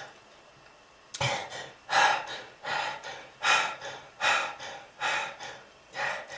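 A smoker's harsh hacking cough: a run of about seven gasping, breathy heaves at a steady pace, about one every three-quarters of a second, starting suddenly about a second in.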